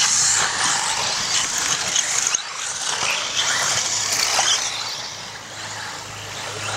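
Radio-controlled off-road buggies racing on a dirt track: a high, steady whirring of the cars running, swelling briefly as one passes close by about four seconds in.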